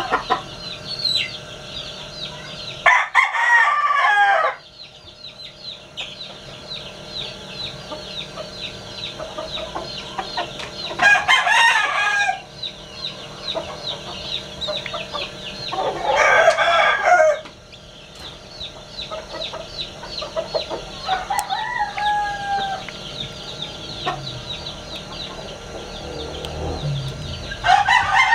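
Newly hatched chicks peeping constantly in quick, high chirps. Roosters crow loudly over them four times, about three seconds in, near eleven and sixteen seconds, and at the end, with a few shorter falling calls between.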